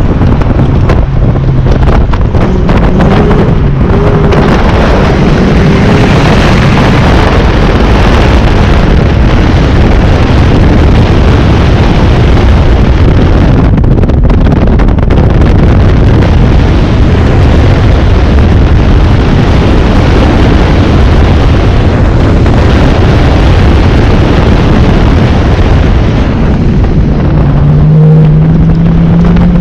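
2001 Ford Mustang GT's V8 engine running hard through an autocross run, loud, mixed with wind rushing over the microphone. The engine note rises near the end.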